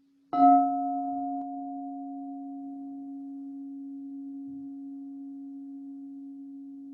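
A crystal singing bowl is struck once, a third of a second in. It rings with a deep steady tone and a fainter higher overtone. The ring fades slowly and is still sounding at the end.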